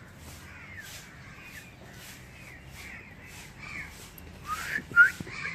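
Birds calling: a run of short calls, about three a second, with a louder, quickly rising call about five seconds in.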